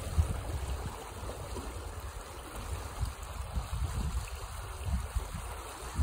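Fast, foaming water rushing steadily along an earth-banked channel. Now and then there is a low rumble of wind buffeting the microphone.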